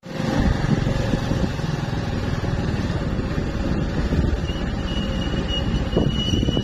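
Motorbike engine running while riding along a lane, with a dense, choppy low rumble throughout. A thin, steady high whine comes in about two-thirds of the way through.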